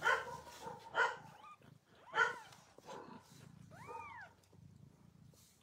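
Newborn kittens mewing: about four short, high calls, the last one rising and then falling in pitch.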